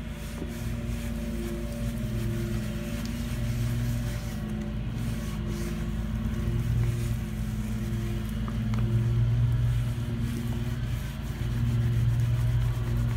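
Rubber-gloved hands scrubbing a sink with a sponge and Comet cleanser paste, a gritty rubbing hiss. Underneath, louder, a lawn mower engine runs outdoors, a steady drone that swells and eases.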